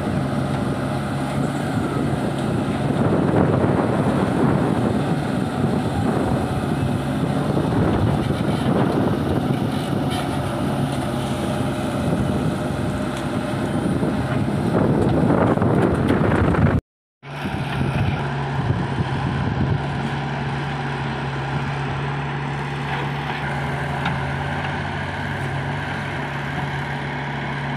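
JCB backhoe loader's diesel engine running under load while its backhoe arm digs and dumps wet clay. The sound breaks off for a moment a little past halfway, then the engine carries on more steadily.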